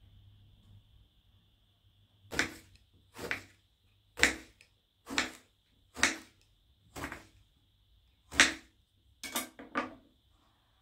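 A series of about nine sharp knocks, roughly one a second, with the last two close together, over a faint steady high-pitched tone.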